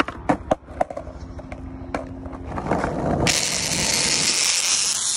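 Skateboard wheels rolling on asphalt with a few sharp knocks early on, then, about three seconds in, a loud, dense crackle of bubble wrap popping rapidly under the wheels.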